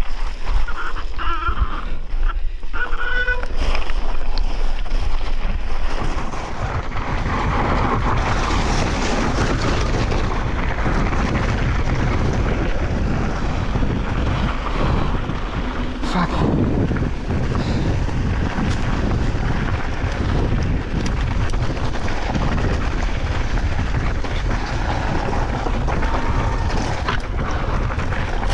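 Wind rushing over the action-camera microphone as a mountain bike descends a loose, rocky gravel trail at speed, with the tyres grinding over stones and occasional knocks from the bike hitting rocks.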